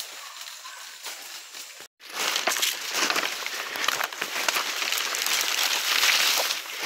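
Footsteps crunching on dry leaf litter and branches and leaves brushing against the phone as someone pushes fast through forest undergrowth. The sound cuts out for a moment about two seconds in, and after that the rustling and crackling are louder.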